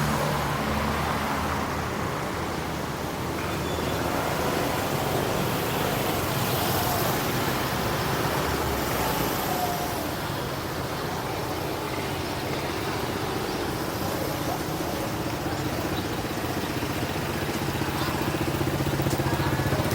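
Road traffic: vehicles passing in a steady mix of engine and tyre noise, with one engine's hum coming up near the end.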